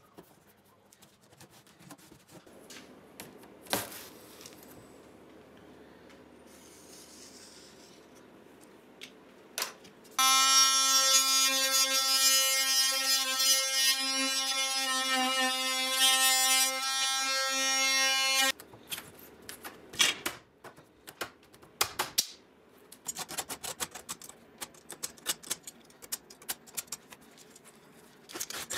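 Cordless oscillating multi-tool running for about eight seconds with a steady, high buzzing whine as its blade cuts a thin metal strip. Before it there are light handling clicks, and after it a run of quick scratchy clicks as a utility-knife blade scrapes the bench top.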